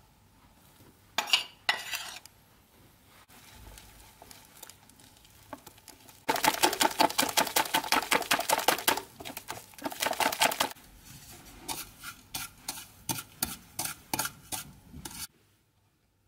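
A whisk beating flour into an egg-and-kefir batter in a bowl. Two taps in the first two seconds, then a fast, even run of strokes for about four seconds. It slows to quicker-spaced separate strokes and stops about a second before the end.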